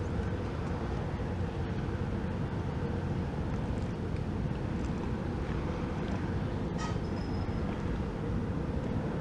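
Low steady rumble of the large ro-ro ferry MV Caledonian Isles under way, with a steady hum from her engines. A brief sharp high sound cuts in about seven seconds in.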